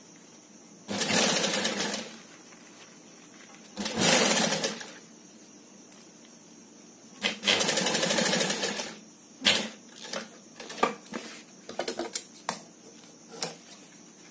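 Industrial sewing machine stitching a zipper and lining in three short runs of about a second each, with a faint steady high whine underneath. After the third run come scattered small clicks and knocks.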